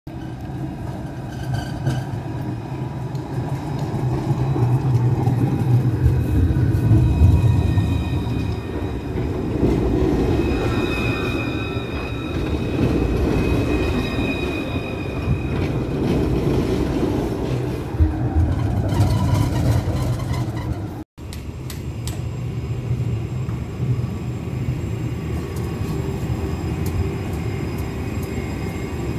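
Tram running on its rails: a steady rumble with thin high whining tones in the middle stretch. The sound breaks off for an instant about two-thirds of the way through, then carries on.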